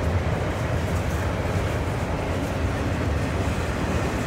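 Loaded double-stack intermodal well cars rolling past, a steady rumble of steel wheels on rail.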